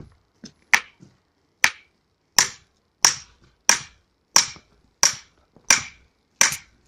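An axe being worked into a firewood round on a chopping block. Nine sharp knocks, about one every two-thirds of a second.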